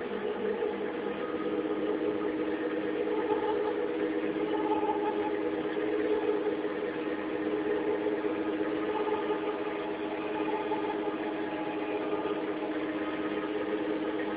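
A boat's engine running with a steady, even drone.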